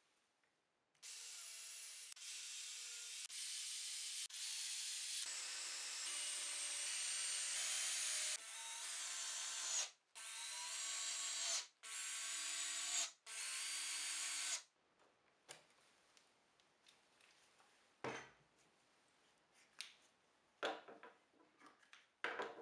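Electric drill motor whining in a series of runs of a second or more each, stopping and restarting and shifting in pitch as the trigger is worked, for about 13 seconds. Then a few light knocks and taps, with one duller thump.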